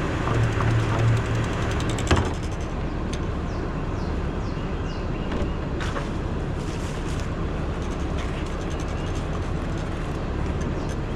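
An engine running steadily in the background, with one sharp knock about two seconds in.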